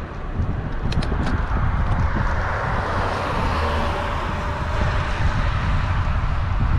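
Wind buffeting the microphone of a bicycle-mounted camera on the move. A car goes past, its tyre noise swelling and fading in the middle. There are a couple of small ticks about a second in.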